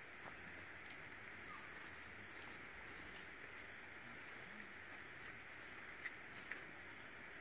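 Faint steady background hiss with a steady high-pitched tone running under it, and two short, faint high chirps about six seconds in.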